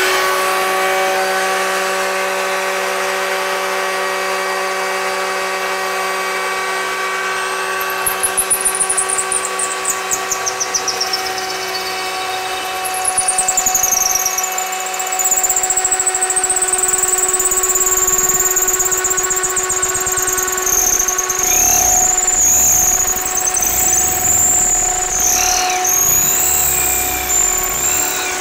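A router running steadily while a drill spins a 3/8-inch square Doug fir blank through a jig against the router bit, turning it into a round arrow shaft. From about eight seconds in, a high, wavering squeal rises and falls as the spinning wood is worked through the cut.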